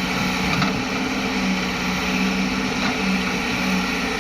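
Heavy diesel engine of earthmoving machinery running steadily with a constant low hum, with a couple of faint clicks.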